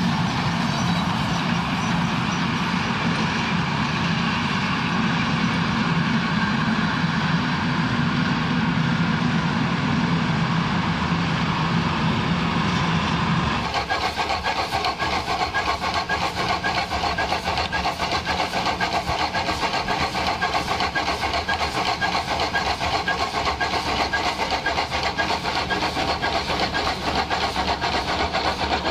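Steam locomotive GKB 671, built 1860, running past with its train. About halfway through the sound changes abruptly to a fast, even clicking rhythm as the locomotive's running gear and tender pass close by.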